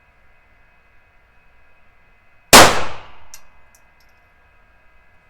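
A single gunshot about two and a half seconds in, dying away over most of a second, followed by a few faint ticks.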